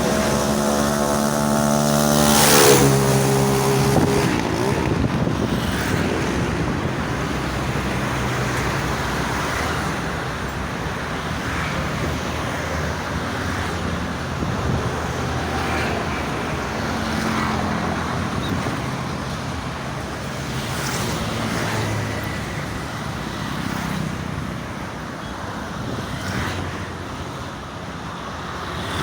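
Steady toll-road traffic noise from passing vehicles, with one vehicle's engine drone passing close and loudest about two to three seconds in.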